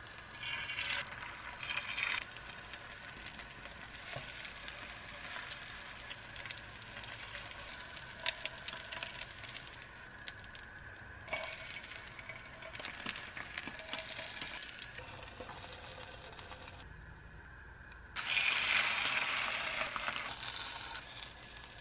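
Beaten egg sizzling in a hot non-stick frying pan, with wooden chopsticks clicking now and then against the pan. The sizzle rises as egg is poured in at the start and again, loudest, near the end.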